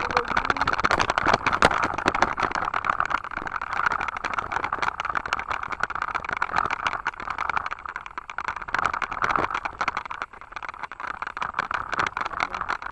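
Mountain bike rolling downhill on a rough gravel and dirt track: tyres crunching over loose stones and the bike rattling, with a dense run of irregular clicks and knocks throughout.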